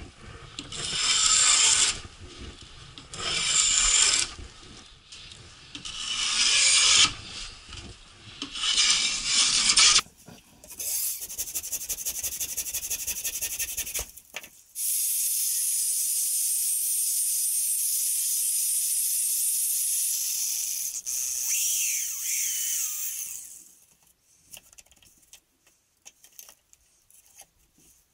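About five long, rhythmic scraping strokes of hand work on wood. Then a handsaw cuts wood in quick fine strokes for a few seconds. A small power tool runs steadily for about eight seconds and winds down, followed by a few light handling clicks.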